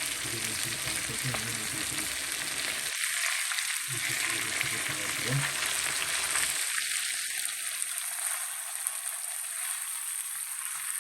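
Fish frying in hot oil: a steady sizzle.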